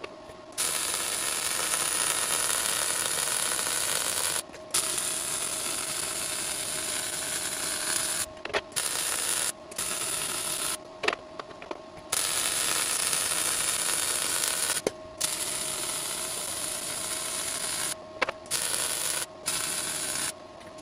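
MIG welding arc running a series of short welds on air boxes. Each weld is a few seconds of steady noisy hiss, and it stops briefly each time the trigger is released, about eight times in all. The longest pause, about a second, comes a little past the middle.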